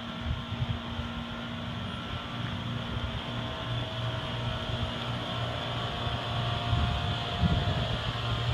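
A steady low mechanical hum, like an engine or machinery running, with wind gusting on the microphone, the gusts stronger near the end.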